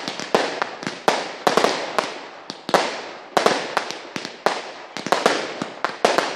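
Category 2/3 consumer fireworks going off in a rapid barrage: sharp bangs several a second, each trailing off in an echoing tail as the aerial shells burst.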